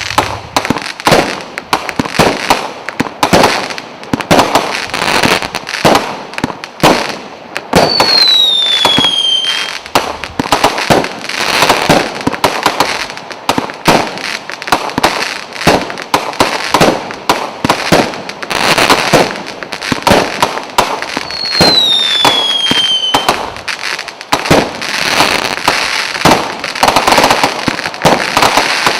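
A 100-shot consumer firework cake with 0.8-inch tubes firing shot after shot in rapid succession, the launches and bursts packed into a continuous barrage. Twice, about eight seconds in and again past the twenty-second mark, a high whistle glides downward for about a second and a half.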